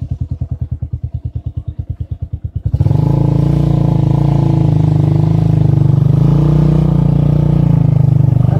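Motorcycle engine idling with a slow, even pulse, then about three seconds in it revs up and runs steadily as the bike pulls away and rides on.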